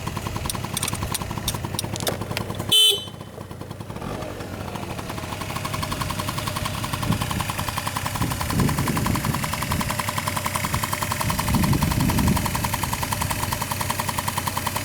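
Honda Dio scooter engine running, with a short loud horn beep about three seconds in; the engine note then dips briefly and swells twice later on.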